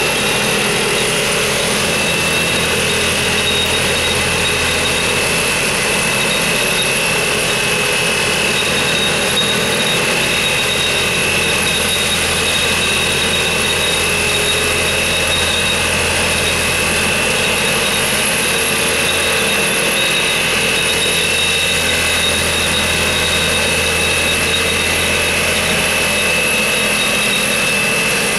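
Plasser & Theurer DGS 62 N dynamic track stabiliser running as it creeps along the track: a loud, steady machine drone with a constant high-pitched whine over a low hum.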